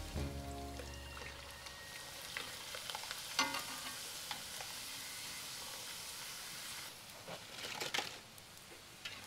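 Emping melinjo crackers deep-frying in hot oil in a wok, a steady sizzle, with a couple of sharp clinks as the metal spatula and wire skimmer touch the pan, about three seconds in and again near the end.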